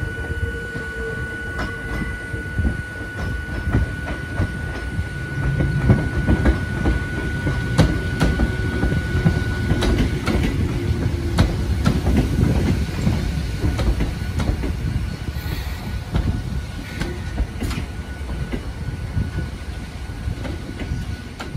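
Hakone Tozan Railway electric train running past close by, its wheels rumbling and clacking over the points and rail joints. It grows louder about five seconds in as the cars come alongside, then eases off near the end.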